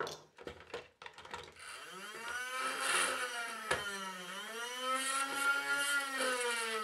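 A few light clicks, then the Nerf Ultra 2's stock flywheel motors spin up with a rising whine about a second and a half in, dip briefly and pick up again, then begin to wind down near the end. The motors are wired backwards, so the flywheels are spinning the wrong way.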